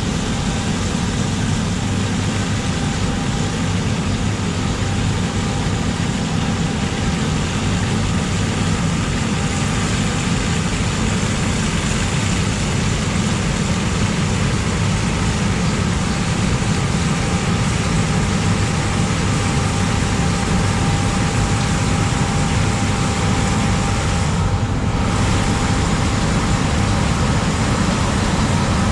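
John Deere S970i combine harvester running steadily, a constant engine drone with machinery hiss and a faint steady whine.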